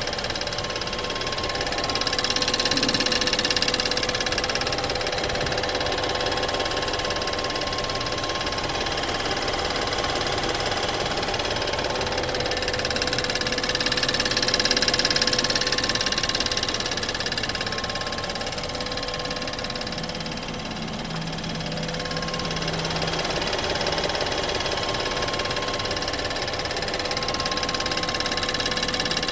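BMW 320i F30's four-cylinder petrol engine idling steadily just after start-up, with a constant mechanical noise over it that the owner takes for a high-pressure fuel pump fault. It swells slightly twice, a few seconds in and about halfway through.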